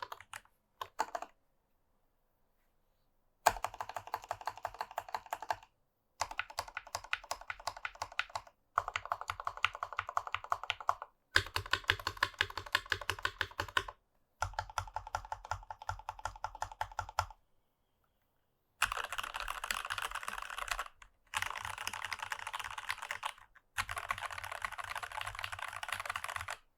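Typing on a Rama Works U80-A mechanical keyboard with stock, unlubed C3 Tangerine linear switches in a brass plate and GMK keycaps. It comes as a series of fast typing runs, each two to three seconds long, broken by brief silent pauses.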